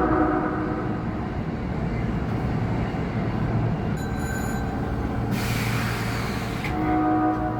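Osaka Metro 22 series subway train's off-sounding electric horn: a blast fading out about a second in, then sounding again near the end, over the low rumble of the train. Between the blasts come a brief high squeal and a short burst of hiss.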